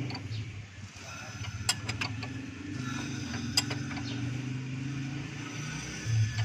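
Steady low hum of a running engine, with three sharp metallic clicks about two seconds in and again near four seconds, and a louder low thud near the end.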